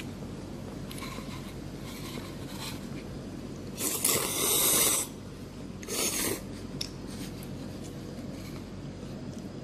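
Someone slurping soba noodles twice: a long slurp about four seconds in, then a shorter one about two seconds later.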